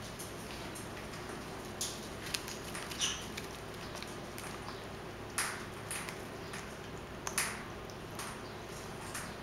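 Pet parrots making short, scattered chirps and clicks, about seven in all, over a steady low hum.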